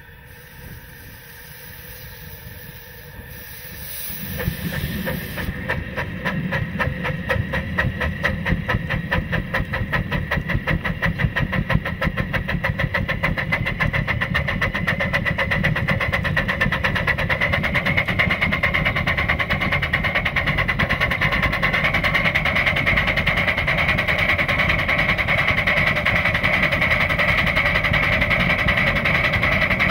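Oil-fired 3-inch-scale live steam locomotive working a train, its exhaust beating in a rapid, even rhythm. Faint at first, it gets suddenly louder about four seconds in, and a steady higher tone comes up over the beats in the second half.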